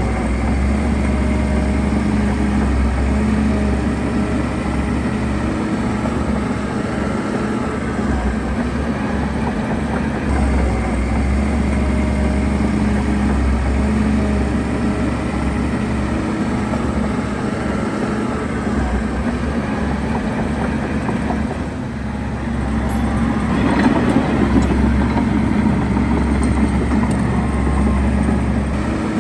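Heavy diesel engine of earthmoving equipment running steadily. Toward the end it dips briefly, then rises louder for a few seconds.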